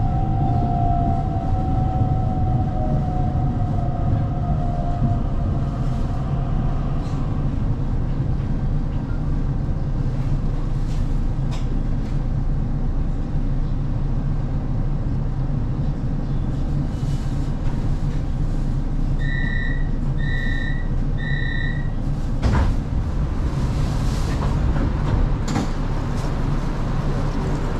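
Dalian Metro Line 12 train running along the track with a steady low rumble, and a falling whine in the first few seconds. Three short beeps sound about twenty seconds in, and a few sharp knocks follow near the end.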